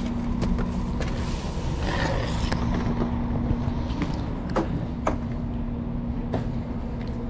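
Idling diesel coach engine: a steady low hum and rumble. A few sharp clicks fall in the second half.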